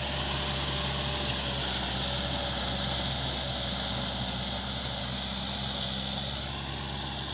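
Kubota L5018 tractor's diesel engine running steadily under load as it pulls a rotary tiller through wet paddy mud, with a steady high hiss over the engine.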